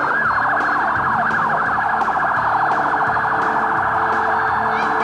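Police siren sounding with a fast, steady warble, with slower rising and falling sweeps running over it.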